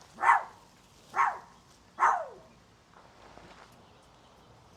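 A dog barking three times, about a second apart, each bark short and falling in pitch.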